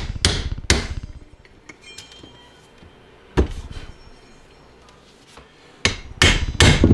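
Hammer blows on a long socket driving a new ball bearing onto a hot tub pump motor's shaft. Two strikes at the start, one about halfway through, then a quick run of strikes near the end, with small metallic clicks of the parts being handled in between.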